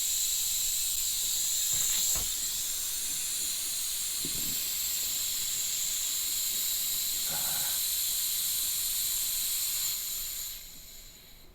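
Steady high hiss of water rushing through the pump house's pressurised plumbing, with faint whistling tones in it, fading out about ten and a half seconds in.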